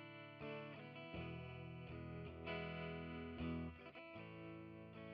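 Squier Stratocaster-style electric guitar strumming chords, with the chord changing about a second in and again near the end.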